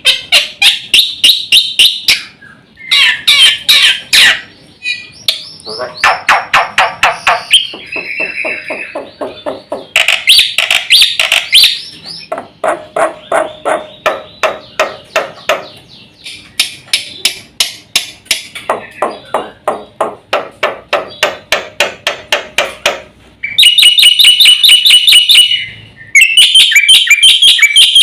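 Black-winged starling (jalak putih) singing a long, loud, varied song of rapid repeated notes and chattering phrases that change every second or two, laced with imitations of other birds' songs.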